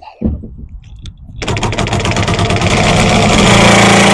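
Power tool working on a stuck bolt in a loud, fast-rattling burst. It starts about a second and a half in and stops sharply near the end.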